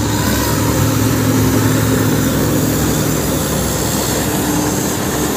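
John Deere W70 combine harvester running at close range while cutting and threshing a crop: a steady engine drone under a broad hiss from the header and threshing works.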